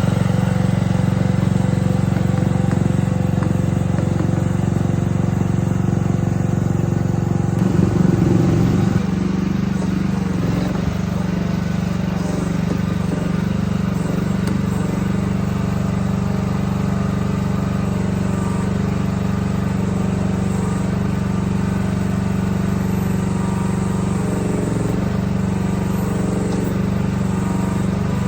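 An engine running steadily, with its note shifting and briefly louder about eight seconds in.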